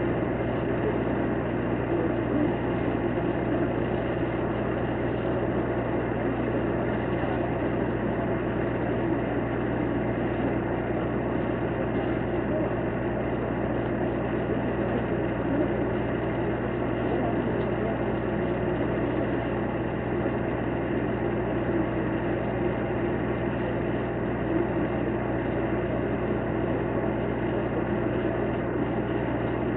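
Steady mechanical drone with a low hum under it.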